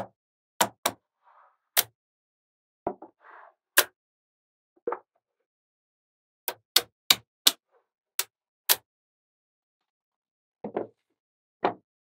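Small magnetic balls clicking as magnet-ball wall pieces are set down and snapped onto a model building: a dozen or so sharp clicks at uneven intervals, with a few soft rattles between.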